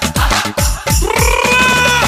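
Song intro music with an electronic beat: deep, falling-pitch bass drum hits about four a second. From about halfway, a single held melody note enters, sliding up slightly and then holding steady.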